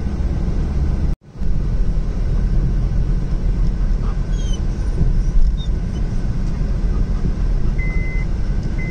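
Steady low road and engine rumble heard from inside a moving car, with a brief total dropout about a second in. Near the end, a high electronic beep starts repeating about once a second.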